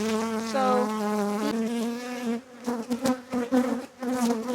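Honeybees buzzing at an opened hive. The buzz holds steady for about two seconds, then wavers and drops in and out as bees move about.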